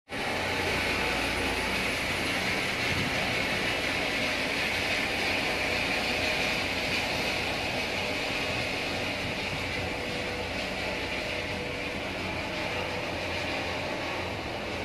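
Helicopter flying close by the ship, heard from inside the ship's bridge as a steady noise with a low hum underneath, easing slightly in the second half.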